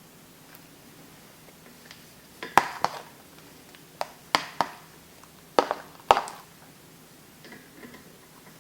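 A utensil clinking against a dish: about seven sharp knocks with a short ring, in three quick clusters.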